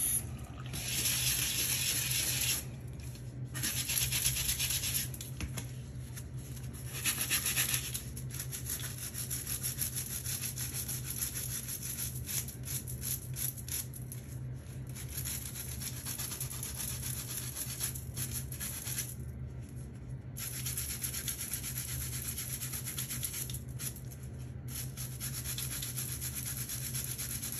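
A stiff-bristled plastic scrub brush scrubbing soapy plastic bath toys in quick, repeated rubbing strokes. A tap runs at first, and a steady low hum sits underneath.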